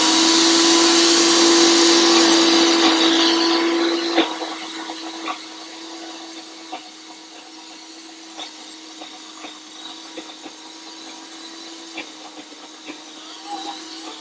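High-speed blender running on a thick raw hummus mixture, loud for about the first four seconds. It then drops much quieter while the motor keeps running steadily, with scattered light knocks.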